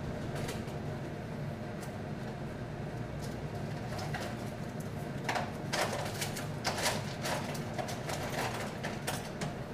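Cutlery drawer being rummaged through for chopsticks: scattered clinks and knocks of utensils over a steady low hum.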